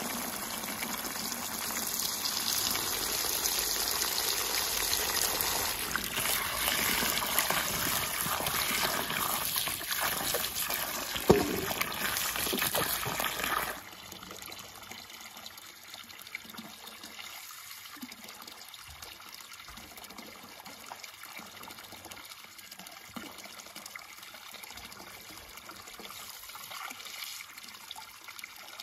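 A stream of water pouring into a basin of floating vegetables, a steady splashing gush, with one sharp click about eleven seconds in. About fourteen seconds in it cuts to quieter dribbling and small splashes as vegetables are dipped into and lifted from a bowl of water.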